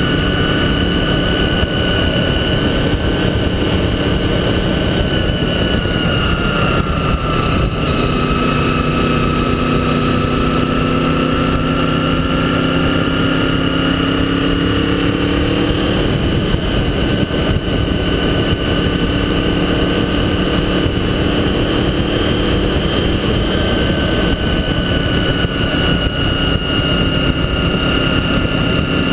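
Motorcycle engine running while riding, with steady wind and road rush over it. The engine note drops about a quarter of the way in, then climbs slowly as the bike picks up speed.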